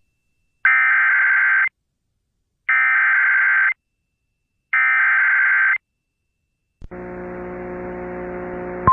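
Emergency Alert System SAME header: three identical one-second bursts of shrill, warbling digital data tones, about a second apart, marking the start of an EAS alert that carries a severe thunderstorm warning. Near the end a quieter steady hum with hiss sets in.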